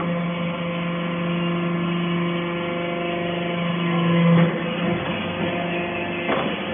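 Hydraulic metal chips baling press running: a steady pump-motor drone that swells to a louder strain about four seconds in, then drops back, as the press builds pressure on a stroke.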